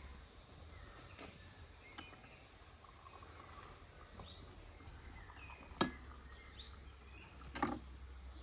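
Two sharp clinks of tableware a couple of seconds apart, from a knife cutting cake in a metal baking pan and tea glasses being filled, over faint bird chirps.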